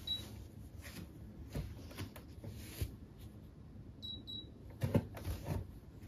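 Tanita digital bathroom scale giving a short high beep as it switches on, then bare footsteps thumping on the wooden floor as she steps onto it. About four seconds in the scale gives two quick beeps as the weight reading settles, followed by a couple of heavier thumps as she steps off.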